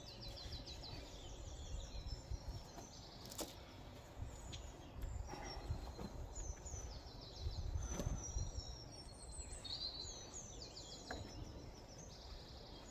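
Small birds chirping in short, quick series of high notes every few seconds over a low background rumble, with a couple of faint knocks.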